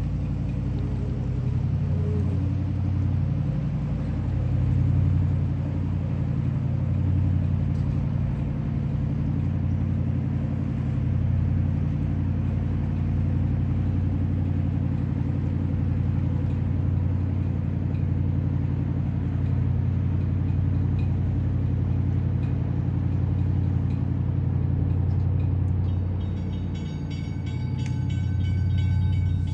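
A heavy engine running steadily with a low drone. Near the end, faint high-pitched pulses repeat over it.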